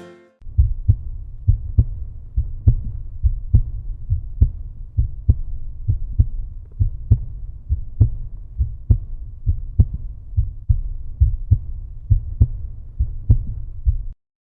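Deep bass beat in the closing music, a low thud about twice a second that cuts off abruptly near the end.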